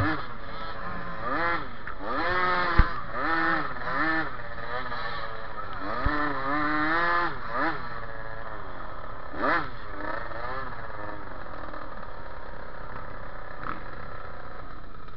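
Small minibike engine heard onboard, revving up and down in short throttle blips while riding slowly, settling to a steadier run for the last few seconds. A few sharp knocks come through, near the start and about 3 and 6 seconds in.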